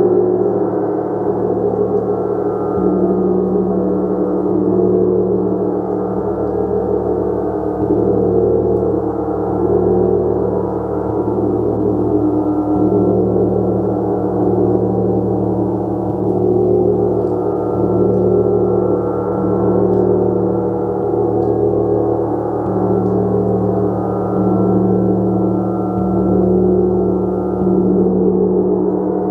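Gong played continuously: a dense, sustained wash of ringing tones that swells and ebbs gently every couple of seconds.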